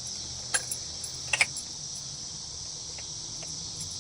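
Steady chirring of crickets with a low background hum. A few light clicks come about half a second and a second and a half in.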